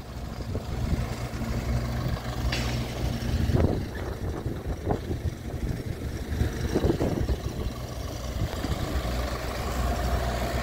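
Large engine idling steadily, with a higher steady hum that stops about three and a half seconds in and scattered knocks and clatter.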